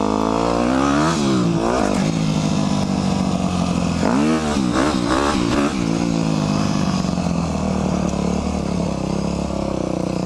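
Dirt bike engine, heard from the rider's helmet camera, revving up and down as the bike goes over sandy jumps: sharp rises and drops in pitch about a second in and again around four to five seconds in, then running more steadily.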